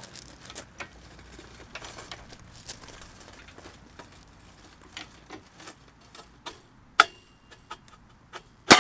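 Scattered light clicks and creaks as a hydraulic crane is pumped and the pull on a 520 kg single-sided neodymium magnet climbs toward 500 kg. Near the end comes a sudden loud metallic crash as the magnet breaks free of the steel plate.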